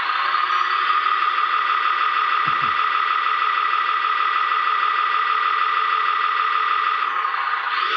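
Small electric hydraulic pump of a radio-controlled model tipper truck whining steadily as the dump bed lowers, changing pitch and stopping near the end.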